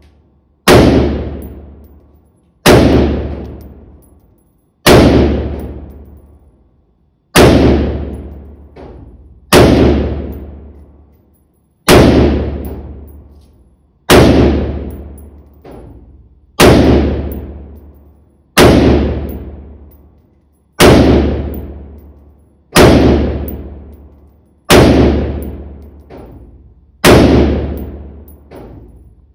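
Windham Weaponry SRC AR-15 rifle fired in slow, single aimed shots: thirteen loud shots about two seconds apart. Each shot is followed by a long echo dying away in the indoor range.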